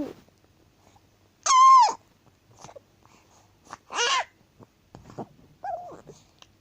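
A baby's short, high-pitched squeaks: a loud one about one and a half seconds in, another about four seconds in, and softer ones near the end.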